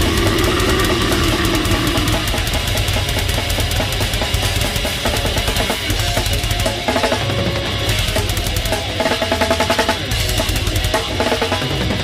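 Heavy metal song without vocals: a drum kit played with rapid, dense strokes under distorted electric guitar riffs.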